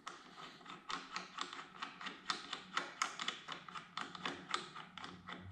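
Quick, irregular light metal clicks and taps, several a second, from an Allen key working a bar-end bolt loose on a motorcycle handlebar.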